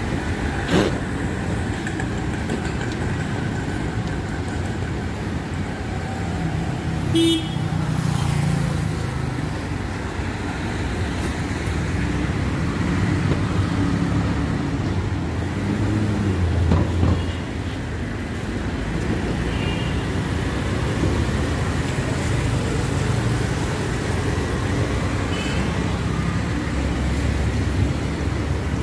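Road traffic running steadily, with a low engine rumble and a few short horn toots.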